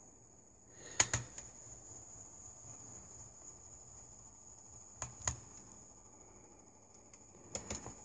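Screwdriver and small screws clicking and tapping against the plastic bottom casing of a Sony Vaio laptop as the screws are put back: three pairs of sharp clicks, about a second in, about five seconds in and near the end, over a faint steady high-pitched whine.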